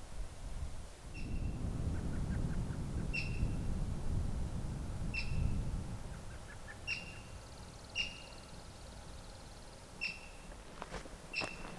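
A small animal's short, high call, repeated seven times about every one to two seconds. A low, uneven rumble of wind on the microphone runs through the first half. A few light knocks come near the end.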